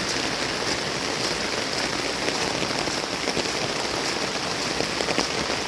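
Steady rain from the typhoon pouring down, with scattered drips and splashes ticking through the hiss.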